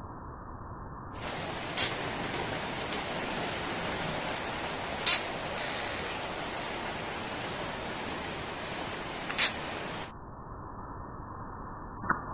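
Steady hiss like static, with a few sharp clicks. It switches on about a second in and cuts off suddenly near ten seconds, leaving a fainter, duller hiss.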